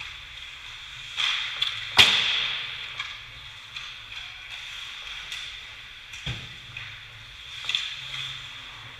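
Ice hockey play: a steady hiss of skate blades on the ice with scattered stick and puck clacks, a sharp crack about two seconds in that rings on briefly, and a heavier thump a little after six seconds.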